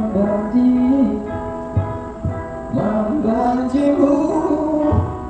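Background music: a song with a singing voice over guitar accompaniment.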